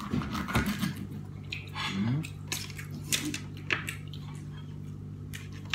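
Knife carving a whole roast duck on a ceramic platter: wet cutting sounds with irregular sharp clicks and scrapes of the blade against the plate, and a low steady hum underneath from about two seconds in.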